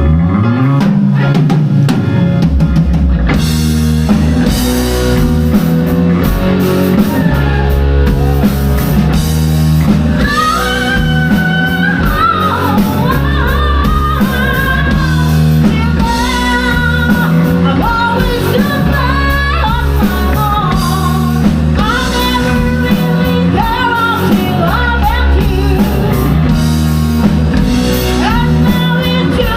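Live rock band playing a song with singing, guitar, bass and drum kit; after a quieter opening the drums and full band come in about three seconds in.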